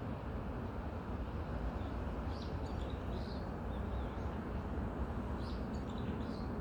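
Steady wind through forest trees, with small birds chirping in short high clusters, once about two seconds in and again near the end.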